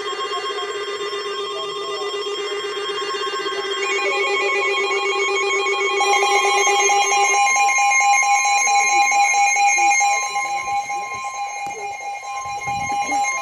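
Emergency Alert System attention tones: several steady electronic alert tones sounding together, one dropping out about seven seconds in while another joins, with a tone near 1 kHz held throughout. They signal an incoming severe weather warning.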